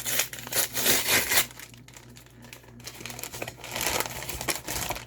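Packaging crinkling and tearing as a mailed package is opened by hand, in two stretches: one in the first second and a half, a longer one from about three seconds in.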